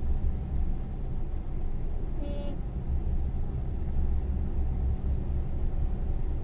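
Steady low rumble of road and engine noise heard inside a moving car's cabin, with one short car horn toot about two seconds in.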